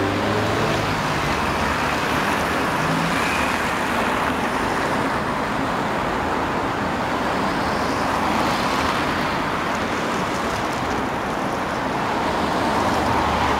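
Steady road traffic noise from a busy city street, with the rising pitch of an engine pulling away right at the start.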